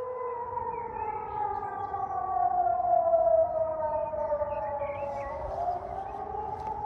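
Civil defense warning sirens sounding in a test of the public warning system. Several siren tones overlap: some hold steady while others slide slowly down in pitch, loudest about halfway through, before settling back to steady tones.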